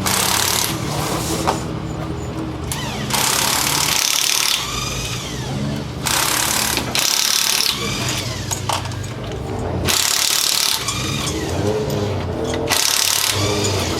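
Ford Fiesta RS WRC rally car's 1.6-litre turbocharged four-cylinder engine working hard, its note rising and falling through the gears. Four or five loud, harsh surges break in at intervals.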